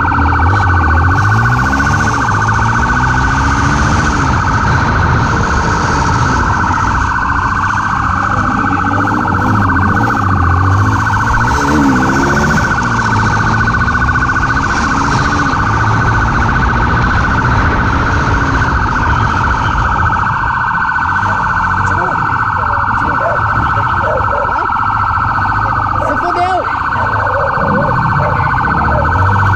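Police motorcycle siren sounding continuously with a quick warble, while the motorcycle's engine revs up and down beneath it.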